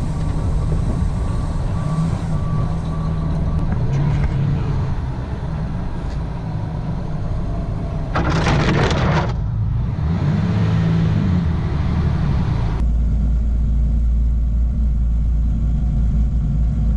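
Heavy truck engines running, with a short loud hiss about eight seconds in. Near thirteen seconds the sound changes abruptly to a deeper, steady rumble.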